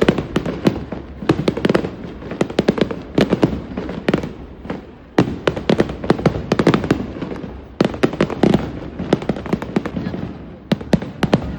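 Aerial fireworks bursting one after another: dense rapid crackling pops over rumbling booms, with big sudden bursts about five and eight seconds in.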